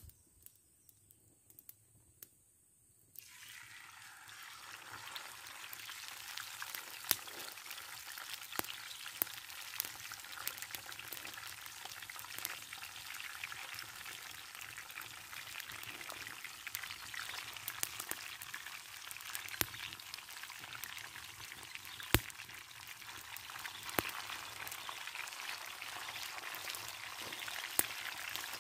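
Food sizzling in hot oil in a frying pan over a wood campfire, starting suddenly about three seconds in as the food goes into the pan. The steady sizzle is broken by sharp pops every second or two.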